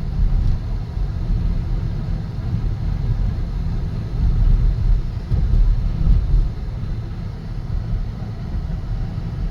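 Steady low rumble of a car on the move, heard from inside the cabin: road and engine noise while driving.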